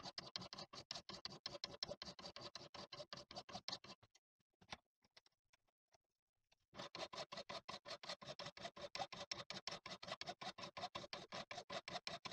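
Steel hand file rasping over the edge of an old chisel held in a bench vise, deburring it, in quick short strokes about five a second. The filing stops for about two and a half seconds with a few light clicks, then starts again at the same pace.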